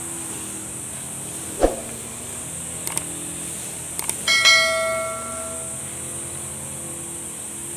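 Two quick mouse clicks followed by a bright bell ding that rings out and fades over about a second: the sound effects of a subscribe-button animation. A single short thump comes earlier, over a steady background hum with a constant high whine.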